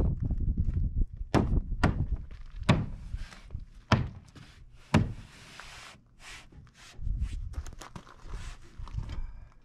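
Engineered wood siding panel knocking against the shed wall as it is pushed and set into place: about five sharp knocks in the first half, then a brief rustling scrape and some low rumbling handling noise.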